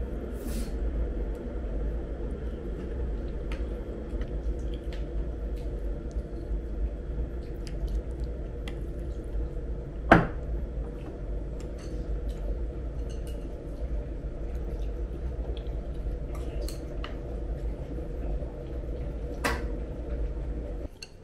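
Kitchen ventilation fan running with a steady hum, with scattered small clicks of cookware and a sharp clink about ten seconds in.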